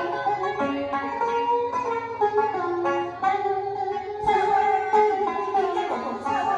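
Instrumental music break of a Vietnamese song: a plucked-string melody of held and changing notes over a low accompaniment, with a sharp new attack a little past the middle.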